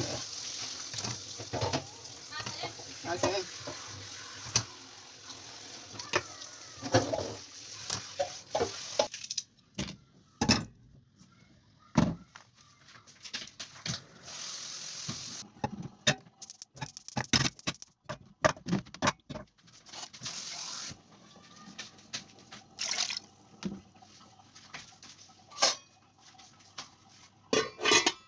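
Wet kitchen handling sounds: raw beef intestine being rinsed and worked in a plastic colander with water, then scattered clicks and knocks of a stainless steel pot and its lid being handled.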